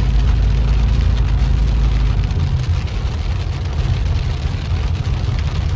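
Inside a car driving through a heavy downpour: a steady low rumble of the engine and tyres on the wet road, with rain hitting the roof and windshield.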